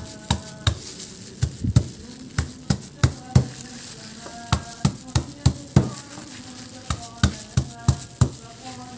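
Stone pestle pounding shallots on a wooden cutting board, crushing them: a run of knocks about two to three a second, some followed by a brief ring.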